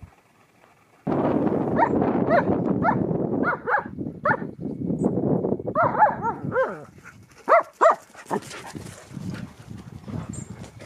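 A dog giving a run of short yelps and barks that rise and fall in pitch, over a steady rushing background noise that starts abruptly about a second in.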